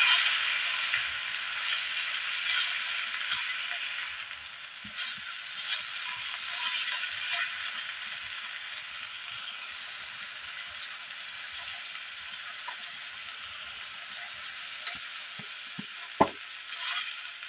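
Water spinach stir-frying in a wok: a steady sizzle, louder at first and easing after about four seconds. Light scrapes and clicks come from a silicone spatula turning the greens against the pan, with one sharp knock near the end.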